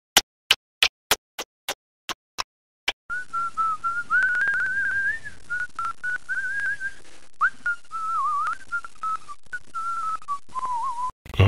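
A run of sharp clicks, about three a second and growing fainter, then from about three seconds in a person whistling a wandering tune. A short loud thump comes near the end.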